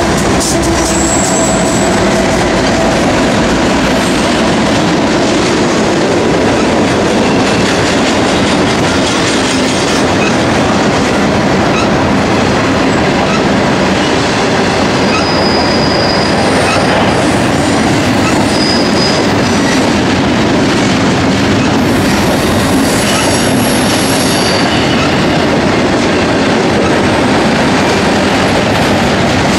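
BNSF double-stack intermodal train rolling past: a steady, loud noise of steel wheels on rail from the well cars, with a few brief high-pitched wheel squeals in the middle.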